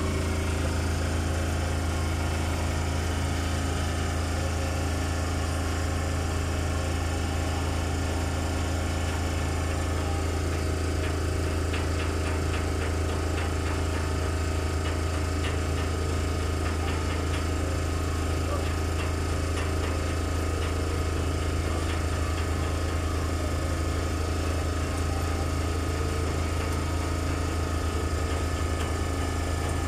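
A nearby engine running steadily, a loud, even low drone that does not change, with a few faint clicks in the middle.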